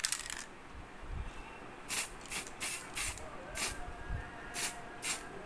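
Aerosol spray can hissing in a string of short bursts, a few a second, as paint is sprayed onto a section of PVC pipe.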